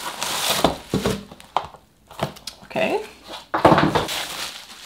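Plastic bubble wrap crinkling and rustling in irregular bursts as a wrapped tripod is slid out of a cardboard box and handled, with a short lull about two seconds in.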